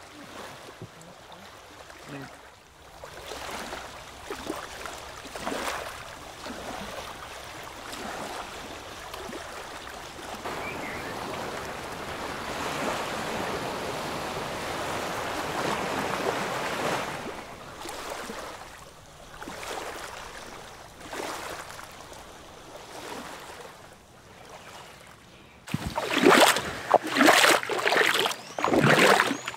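Small waves washing in shallow water, swelling and easing; near the end, louder uneven splashing as feet move through the shallows.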